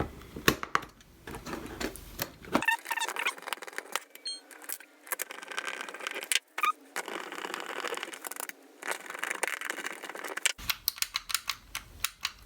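Small plastic switch parts and springs of a Toyota master window switch clicking and rattling as they are handled and pressed back together, with a quick run of clicks near the end.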